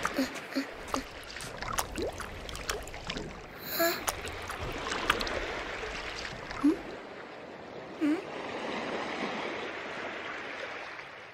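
Small waves washing and lapping over sand at the shoreline, with scattered small splashes. A few short squeaky cries from the baby sea turtle come through, several near the start and a couple later.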